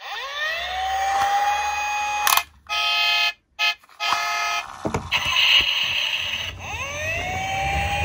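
Toy police car's electronic siren: a wail that rises and holds, then cuts off. A stretch of steady buzzy tones broken by short silences and a few clicks follows, and the rising wail starts again near the end.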